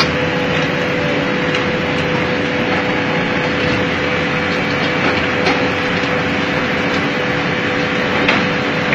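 Excavator's diesel engine and hydraulics running steadily while its arm digs into an earth and rock face, with a steady whine and a few faint knocks.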